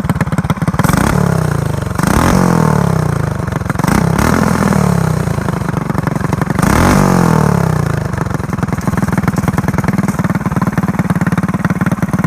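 Predator 212 non-hemi single-cylinder four-stroke engine on a staged header exhaust, idling and blipped up in revs about four times in quick throttle stabs, each falling back, then settling into a steady idle for the last few seconds.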